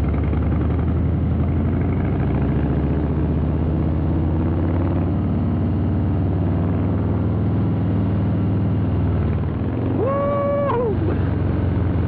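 Harley-Davidson Breakout's 117 cubic inch Milwaukee-Eight V-twin running steadily under way through a Rinehart aftermarket exhaust, heard from on board the moving bike. About ten seconds in, a short held higher tone sounds for under a second.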